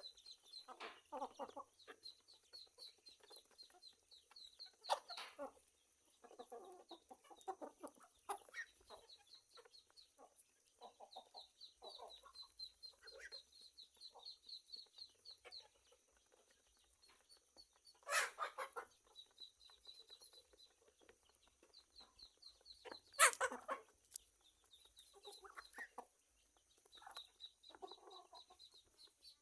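Chickens clucking in short, irregular calls, over a rapid high-pitched chirping that comes and goes. Two louder, harsher calls stand out, about 18 and 23 seconds in.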